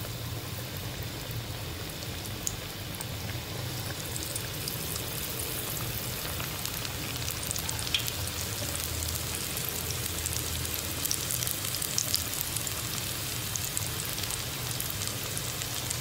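Aloo laccha pakoras, shredded potato in gram-flour batter, deep-frying in hot oil: a steady sizzle with scattered crackles and a few sharper pops.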